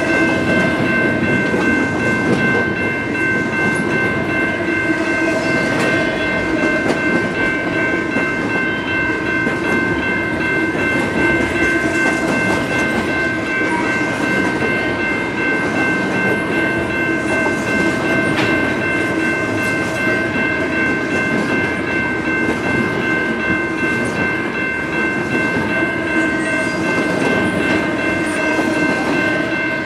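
Double-stack intermodal container cars of a CN freight train rolling past: a steady, continuous rumble of steel wheels on rail, with a constant high-pitched whine running over it.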